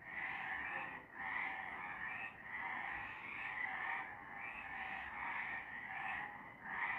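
A chorus of many frogs calling together, a dense rasping sound that swells and dips about once a second as the calls overlap.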